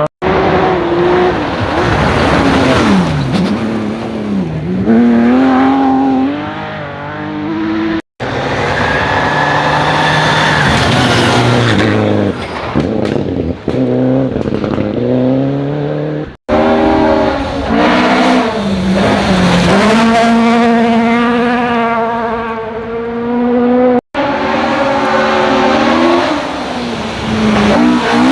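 Rally cars driven flat out on a special stage, in four short clips cut one after another: the engine notes climb through the gears, then drop sharply and rise again as the cars brake and accelerate past.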